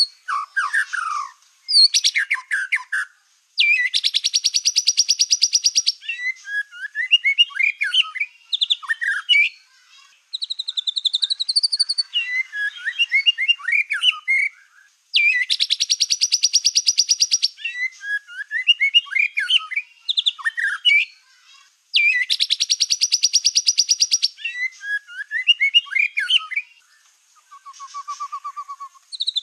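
Black-tailed white-rumped shama (murai batu) in full, continuous song: varied whistled phrases broken three times by a long, very rapid trill of about two seconds, with a short low buzzy rattle near the end.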